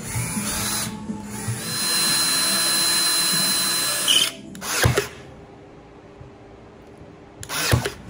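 Ryobi 18V ONE+ cordless drill running steadily for about three seconds with a thin high whine, boring through a Kreg cabinet-hardware jig into wood, then stopping. A sharp knock follows, and near the end comes a single sharp crack from a Ryobi cordless brad nailer firing.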